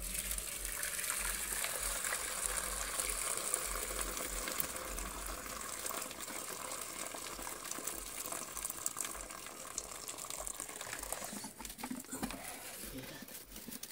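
Hot potato cooking water pouring in a steady splashing stream from a tilted, lidded pot into a metal bowl as boiled potatoes are drained; the stream thins out near the end.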